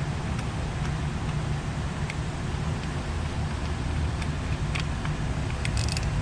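Steady low rumble of background noise, with a few light, scattered clicks of parts being handled while an ignition coil is worked loose, a small cluster of them near the end.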